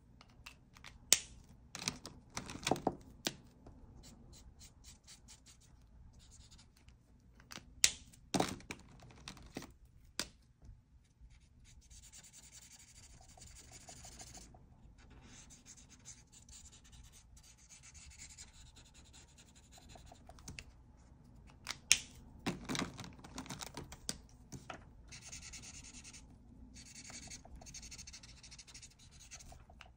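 Ohuhu marker tips scratching across paper in runs of soft, even strokes. Several sharp clicks and knocks come from markers being handled, picked up and put down on the desk.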